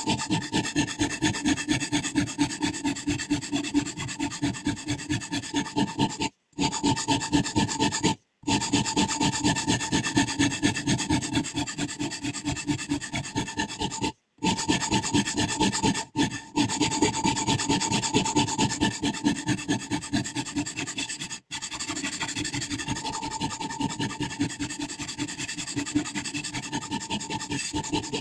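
A sharpening stone rubbed rapidly back and forth along a scissor blade's edge in a guided sharpening system, about four strokes a second, with a rasping, filing sound. The stroking is broken by a few abrupt cuts.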